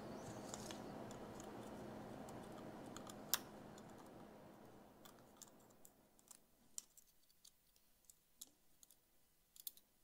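A few faint, separate small clicks of metal tweezers against the tiny parts of a spinning reel being taken apart, the sharpest about three seconds in, over a faint hiss that fades after about four seconds; otherwise near silence.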